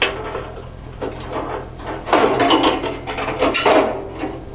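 Metal scraping and clattering inside a steel burn barrel as the perforated steel bottom grate is handled and set in place, in irregular bursts with the loudest stretch in the second half.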